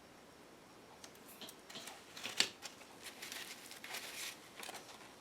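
Paper and craft materials handled on a tabletop: irregular rustling and scraping starting about a second in, with one sharp click or snip in the middle.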